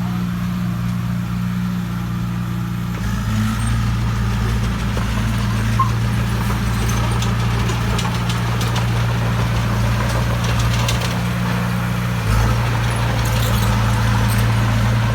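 Bulldozer's diesel engine running steadily, its note growing louder about three seconds in and again near the end.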